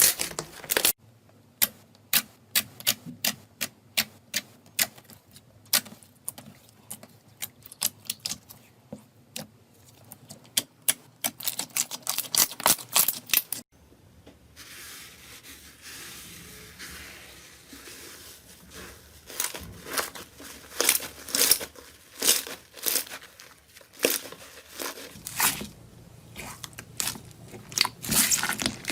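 Slime being squeezed and pressed by hand, making runs of sharp sticky clicks and pops at several a second. There is a quieter stretch with softer crackling about halfway through.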